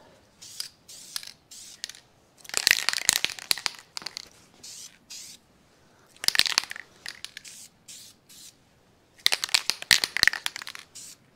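Aerosol can of heat-resistant black paint being shaken and sprayed. There are three loud spells of rattle and hiss, each about a second long, with lighter clicks between them.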